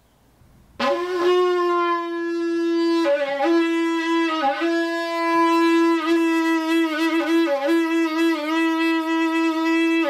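A wind instrument playing a short piece of music that starts about a second in: a loud held note runs under quick changing notes and brief flourishes, and it cuts off at the end.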